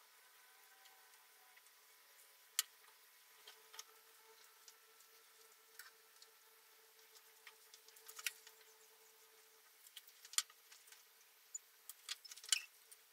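Stiff pre-cut paper card being folded and handled: scattered sharp clicks and crinkles, with a quick cluster of them near the end.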